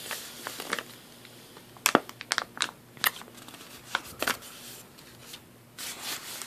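A plastic cough drop bag crinkling and crackling as it is handled, in scattered sharp crackles with short gaps between them.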